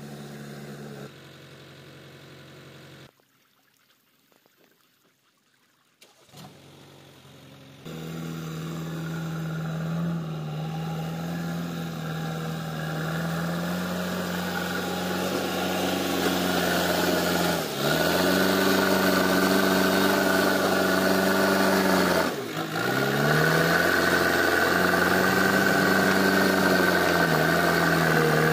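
A low hum and a few seconds of near silence, then the JCB 448 naturally aspirated four-cylinder diesel of a JCB 3DX backhoe loader comes in and runs loud and steady under load in deep mud. Its revs dip sharply twice and pick up again.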